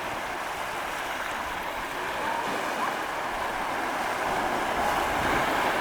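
Sea waves washing onto a beach: a steady rush of surf that swells a little near the end.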